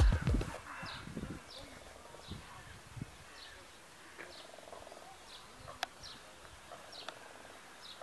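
Quiet outdoor bird ambience: a small bird repeats a short high chirp about every two-thirds of a second, with one sharp click about three-quarters of the way through.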